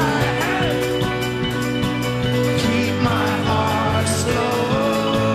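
Live folk-rock band playing: loud lead and harmony vocals, one voice shouted, over strummed acoustic strings and a steady beat.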